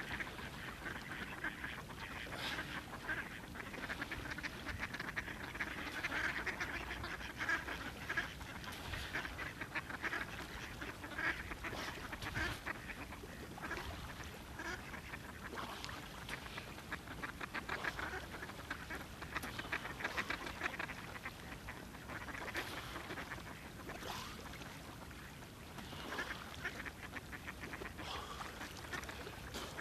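A flock of ducks quacking and calling on the water, many short calls overlapping one another.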